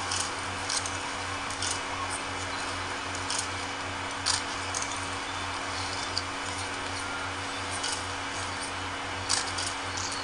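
Hushed crowd ambience: a steady hiss and low hum, with short clicks and rustles scattered irregularly, the loudest about four seconds in.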